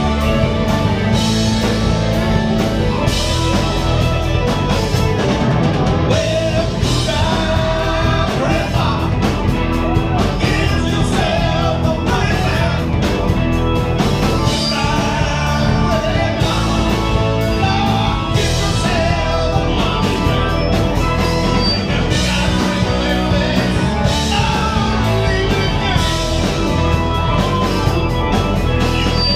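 Rock band playing at full volume, with drums, electric guitar and a singing voice.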